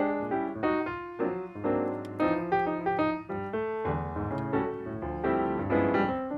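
Background music: a piano melody over bass notes.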